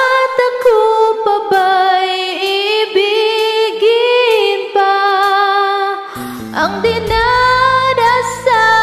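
Female voice singing long, sustained, wavering high notes with no words of a Tagalog pop ballad, over a karaoke backing track that has dropped its bass. The low accompaniment comes back in about six seconds in while she keeps singing.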